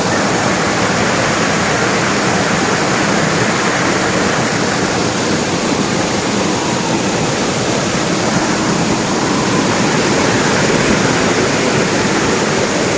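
Waterfall pouring, a loud steady rush of falling water that does not change.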